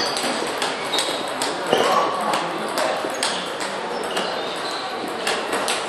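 Table tennis balls clicking off tables and paddles at several tables at once, an irregular patter of sharp ticks, with voices in the background.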